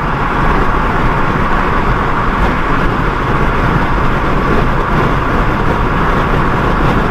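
Steady road noise heard from inside a car cruising at highway speed: tyres on the pavement and wind, with no break or change.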